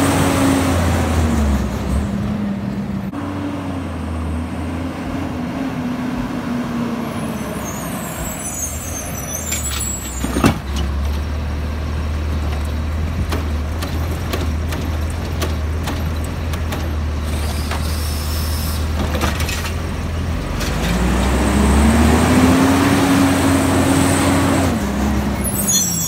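Automated side-loader garbage truck at work: its engine revs up and settles as the hydraulic arm lifts a cart and empties it into the hopper. A single sharp bang comes about ten seconds in. The engine revs again near the end as the truck moves off.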